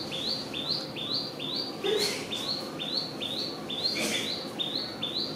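A bird calling the same short, rising two-part chirp over and over, very evenly, about twice a second, with brief rustling sounds about two and four seconds in.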